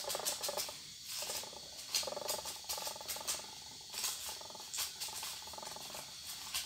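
Thin holographic nail transfer foil crinkling as it is crumpled and worked between the fingers: a run of irregular crackles, strongest about two seconds in.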